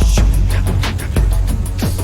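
Electronic background music with a heavy, deep bass and a steady beat: short bass-drum hits that slide down in pitch, under crisp high percussion ticks.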